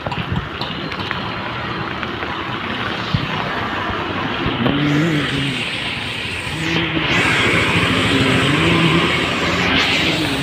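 Road traffic on a wet, waterlogged street: a steady hiss of tyres. About five seconds in, passing engines add tones that rise and fall, and the hiss swells louder after about seven seconds.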